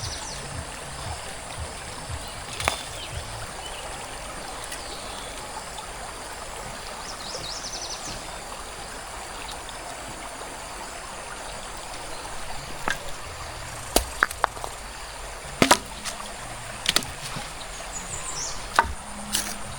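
A forest stream flowing steadily, with scattered sharp knocks and clicks over it, several close together in the second half.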